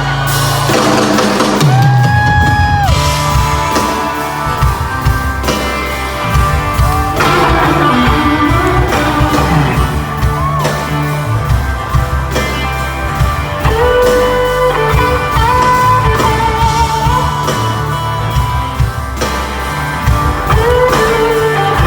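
Live rock band playing a slow song: electric guitar lines with bending, gliding notes over steady bass and drums.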